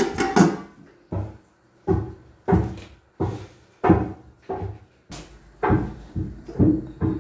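Stainless-steel cooking pots and their lids being handled, knocking and clattering with a short ringing clunk every half second to a second.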